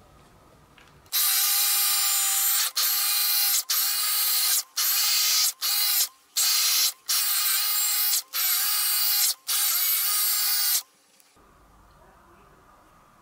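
Dyson V15 Detect cordless stick vacuum running: a steady whine over a loud hiss that starts about a second in, breaks off abruptly about eight times for a moment each, and stops near the end.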